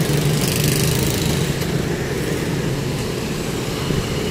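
A small vehicle engine running steadily, with a brief hiss from about half a second to a second and a half in.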